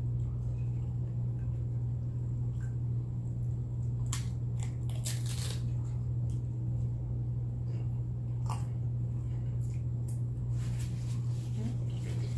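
Close-up crunching and chewing of nacho chips, with crisp bites in clusters about four seconds in, again around eight seconds and near the end, over a steady low hum.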